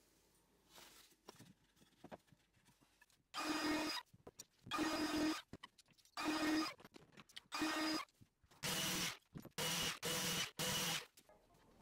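Compact Makita trim router running in eight short bursts, each under a second, as it cuts into a wooden rail. The last four bursts come in quick succession.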